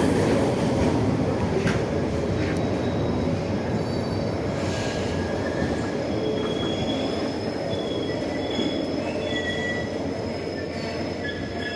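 Passenger express train rolling into the station: a steady rumble of wheels on rail that eases off slightly, with a few clanks early on and short high-pitched wheel squeals.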